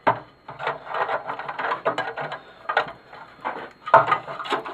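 Small metal springs and parts being pulled out of a small TV's chassis by hand: irregular clicks, rattles and clatter of metal and plastic, with a sharper knock about four seconds in.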